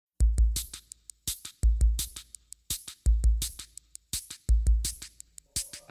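A drum-machine beat playing on its own as opening theme music. Deep double kick hits alternate with sharp, snappy drum hits, and the pattern repeats about every 1.4 seconds.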